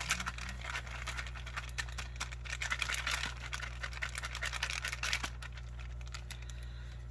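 Self-heating ration pack, just filled with water to start its heater, giving off a dense, rapid scratchy crackle and rustle that thins out after about five seconds.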